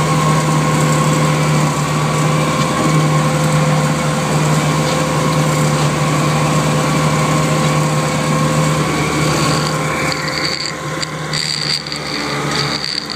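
Aebi TT95 slope mower running steadily under load as its front-mounted mower cuts through tall dry reeds, a continuous engine drone with a steady whine. About ten seconds in, the sound eases a little and a high, thin tone comes in.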